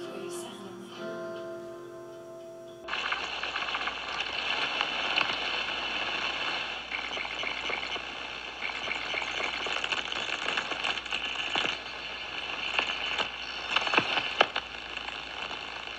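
Background music for the first few seconds, then a sudden change to steady crackling and sizzling with scattered sharp pops: a plastic camcorder body blistering as it is baked. A low steady hum runs under the crackling.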